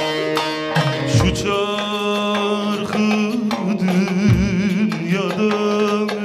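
Male voice singing a Turkish folk song with a wavering vibrato, accompanied by a plucked bağlama (long-necked saz). The saz plays alone for about the first second and a half before the voice comes in.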